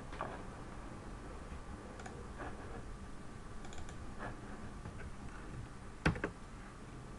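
A few separate clicks of a computer keyboard and mouse, spaced a second or more apart, with a louder close pair about six seconds in.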